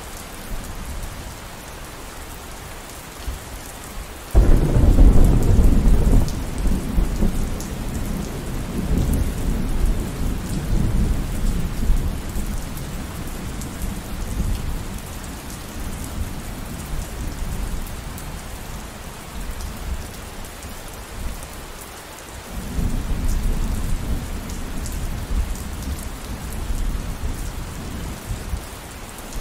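Steady rain with thunder. A loud low rumble of thunder starts suddenly about four seconds in and rolls on for several seconds. A second, softer rumble comes in about three-quarters of the way through.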